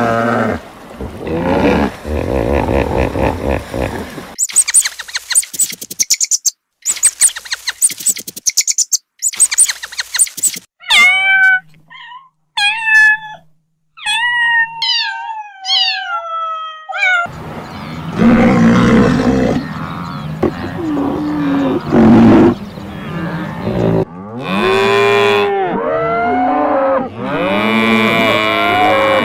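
A kitten mewing, a run of short high calls each falling in pitch, in the middle; then cattle mooing, several long calls that rise and fall, near the end. Before these come stretches of rapid, rasping animal noise.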